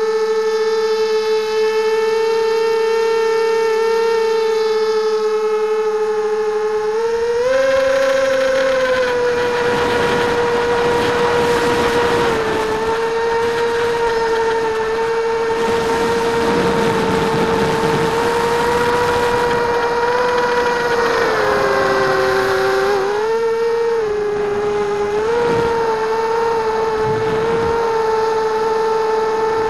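Coptergeist CGX250 mini quadcopter's electric motors and propellers whining, heard through its onboard camera's microphone. The pitch holds steady at first, rises with throttle about seven seconds in along with a rush of air, then dips and wavers several times near the end as the throttle changes.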